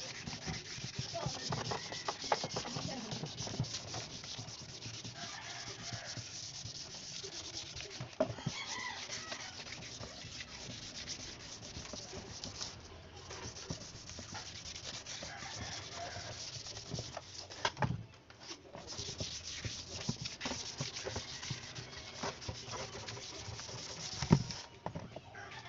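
Wet 1000-grit sandpaper rubbed back and forth by hand over a plastic motorcycle fairing, a steady scratchy hiss: fine sanding to take out scratches before primer. The rubbing stops briefly twice, and a single knock comes near the end.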